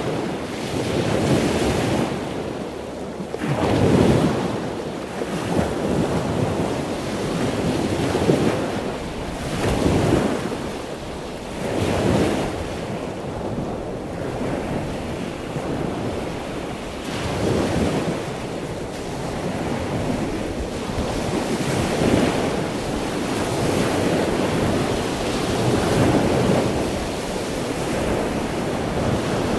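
Ocean surf: waves breaking and washing in a continuous rush that swells and falls back in surges every few seconds.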